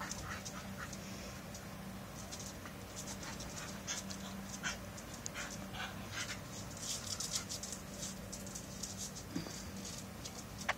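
A dog panting, many short breaths in an uneven run, over a steady low hum.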